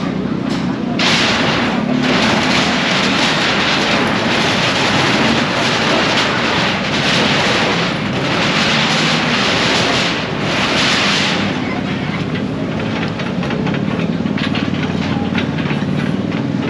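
Demolition work: a steady engine drone under long, loud stretches of crashing and scraping, followed near the end by a run of rapid knocks and clatter.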